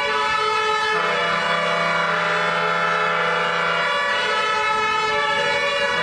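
Fire engine air horns blasting in long, loud held chords. A deeper horn joins about a second in for nearly three seconds and sounds again near the end.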